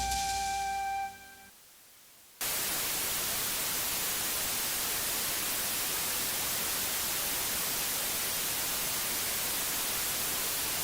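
The last held music notes stop about a second and a half in. After a second of silence, loud, steady television static hiss cuts in suddenly: the dead-channel noise of a station that has gone off the air.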